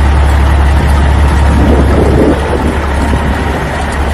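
Concrete mixer truck running: a loud, steady, heavy rumble.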